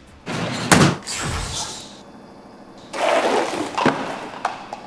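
Two short noisy crashes, each with a sharp knock, about three seconds apart, followed by a couple of light clicks.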